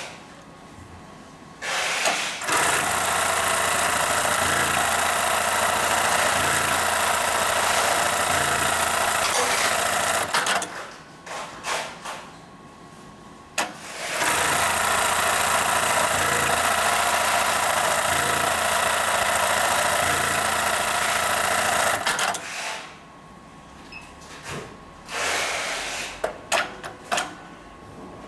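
HighTex 430HM programmable heavy-duty pattern sewing machine stitching at speed in two long sewing cycles of about eight seconds each, with short clicks and knocks in the pauses before, between and after them.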